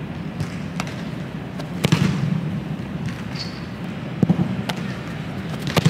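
Sharp thuds of footballs being struck, echoing through a large indoor practice hall; the loudest, a double thud near the end, is the kick of a field-goal attempt off a holder's hold.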